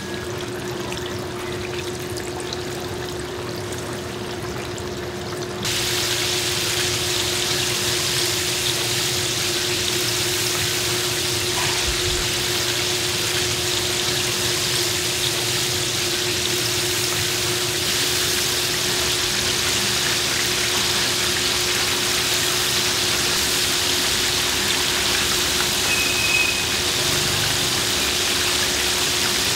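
Battered pork ribs sizzling in the hot oil of a commercial deep fryer, a steady hiss that gets louder and brighter about six seconds in. A faint steady hum runs underneath.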